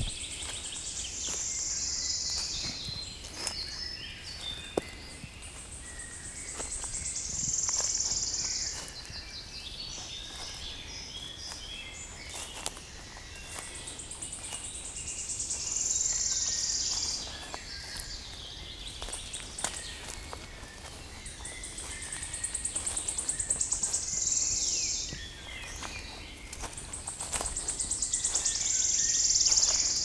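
Forest birdsong: one songbird repeats the same high song about every seven seconds, five times. Each song is a quick run of notes that speeds up and grows louder, ending in a trill. Softer calls of other birds fill the gaps, with a few faint clicks.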